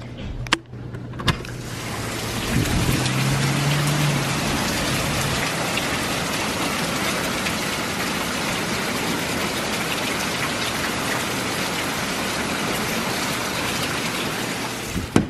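Heavy thunderstorm rain pouring steadily on a back porch and yard, heard through an opened back door. Two sharp clicks at the start as the door opens, then the rain swells in and stays steady until a click near the end.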